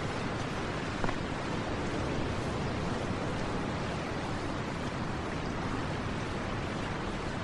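Steady wash of ocean surf breaking on a beach, an even rushing noise with no distinct wave crashes.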